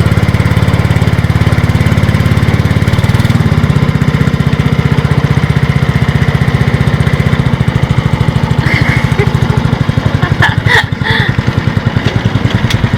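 A small engine running steadily and close by, with a fast even pulse; its note shifts slightly about three and a half seconds in.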